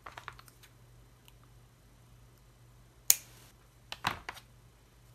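Light clicks and taps of small craft items being handled on a table, with one sharp, loud click about three seconds in and a quick cluster of clicks a second later.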